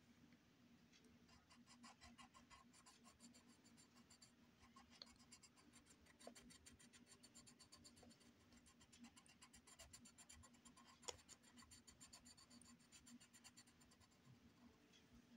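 Faint scratching of a coloured pencil on paper in quick, short shading strokes, with one sharper tick about eleven seconds in.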